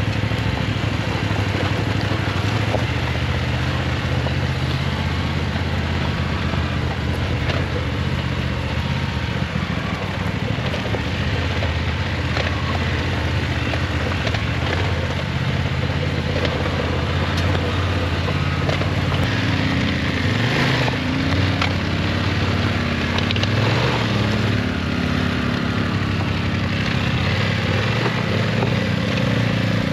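Motorcycle engine running under way over a steady rushing noise. It holds a steady pitch at first, then rises and falls in pitch through the last third.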